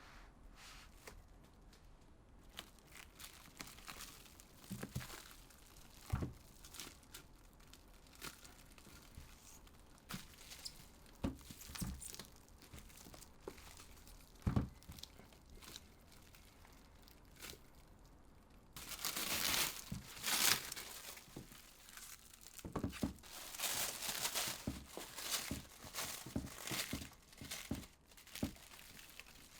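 Wrapping being crinkled and torn by hand, with scattered light knocks. The rustling gets louder and busier about two thirds of the way through.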